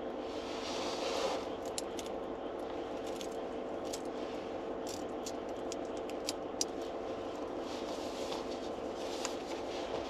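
Steady hum made of several held tones inside a car, with scattered light clicks and scrapes throughout.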